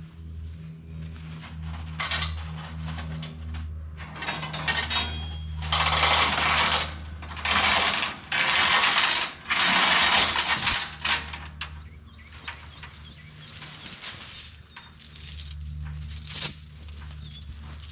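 Heavy 5/16 grade 70 steel binder chain rattling and clanking against the log truck's steel frame and stakes as it is pulled out and handled to bind down the log load. The rattling comes in several long, loud bursts from about five to eleven seconds in, over a low steady hum.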